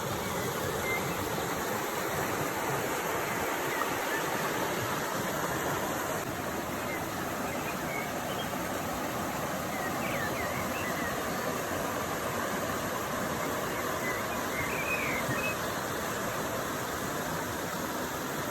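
Steady rushing water of a stream, with a few faint short chirps now and then.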